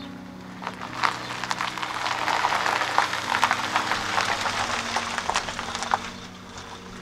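A Mercedes-based Rapido motorhome driving slowly past close by. Its tyres crackle over grit on the road, swelling about a second in and fading near the end.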